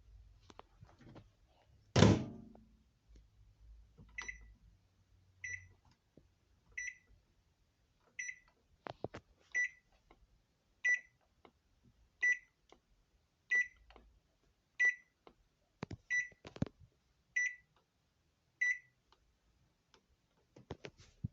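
Microwave oven's end-of-cycle beeps: twelve short high beeps about 1.3 seconds apart, signalling the food has finished heating. A loud knock comes about two seconds in, and the oven's faint low hum stops after the first two beeps.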